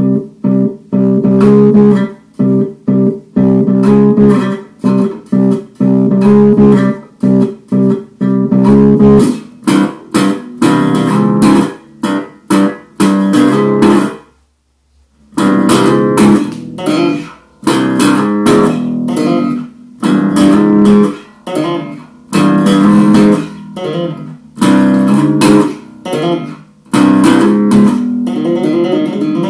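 Multi-string electric bass played solo: short, clipped chords and notes with gaps between them, a break of about a second just before halfway, then denser passages tapped with both hands on the fretboard.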